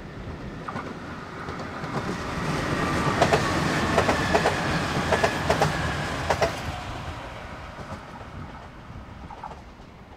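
JR Shikoku 2000 series diesel train passing close by. Its engine and running noise build up. About halfway through comes a run of wheel clacks over the rail joints in quick pairs, then the sound fades as the train moves away.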